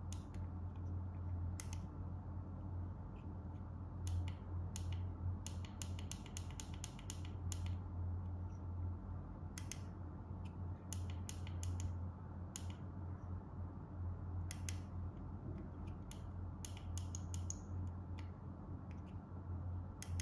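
Small tactile push buttons on a DIY LED clock kit clicking as they are pressed, now singly, now in quick runs of three or four a second as a digit is stepped up, over a steady low hum.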